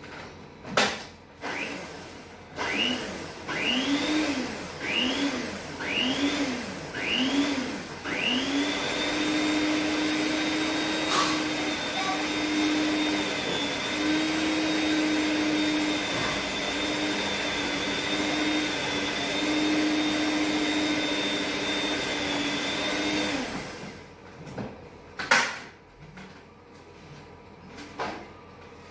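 Electric hand mixer beating cake batter: about five short bursts a second apart, each spinning up, then a steady run of about fifteen seconds that stops abruptly. A few sharp knocks follow, the loudest about 25 seconds in.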